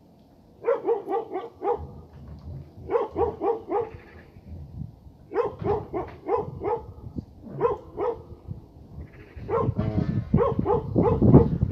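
A pack of stray dogs barking in quick bursts of four or five barks, with pauses between the bursts. Near the end the barking becomes denser and louder.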